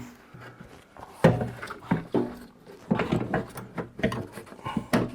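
Irregular clicks and knocks of hands working the lock parts inside a Jeep XJ rear door, trying to push a part that has popped out back into place.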